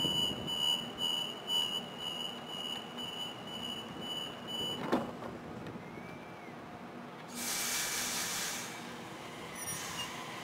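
Door-closing warning on a Sydney double-deck electric train: a high beeping tone about three times a second, ending with a thunk as the sliding doors shut about five seconds in. A burst of air hiss from the train follows about two seconds later.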